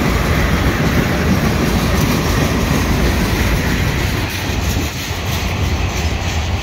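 Freight train of tank cars rolling past close by: a steady, loud rumble of steel wheels running on the rails.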